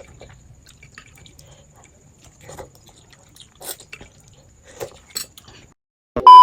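Faint scattered clicks and taps of small handling. Near the end, a loud, steady electronic bleep tone cuts in; it is the loudest thing here.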